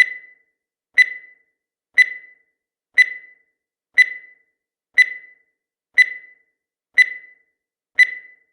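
Countdown timer tick sound effect: a short, sharp tick once a second, nine times, each dying away quickly, with silence between.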